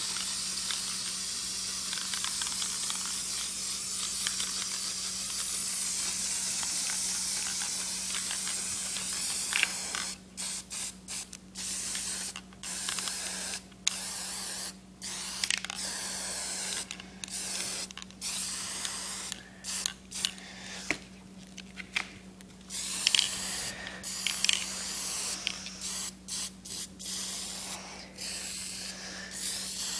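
Aerosol can of black spray paint spraying: one long unbroken hiss for about ten seconds, then a string of short bursts with brief gaps.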